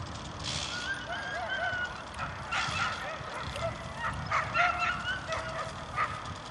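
Whippets shut in the racing starting boxes yelping and whining with excitement, many short high wavering cries overlapping, waiting for the release.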